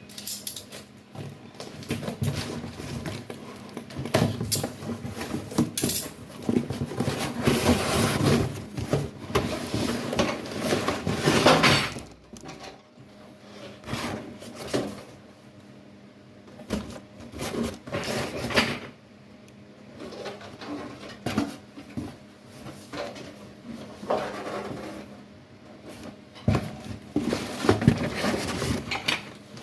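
Handling noises from a sink and its packaging: rustling with scattered knocks and clatter, busiest over the first twelve seconds, then in intermittent bursts with a louder patch near the end.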